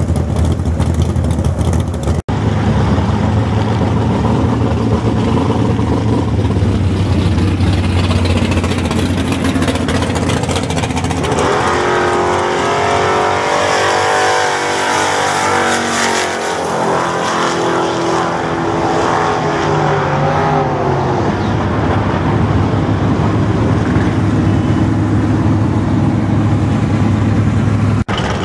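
Cars running down a drag strip, one of them a Pontiac G8 GT with a modified V8 (aftermarket heads, cam and stall converter). About halfway through, the engines pass close at full throttle, their pitch climbing and falling, over a steady low engine drone.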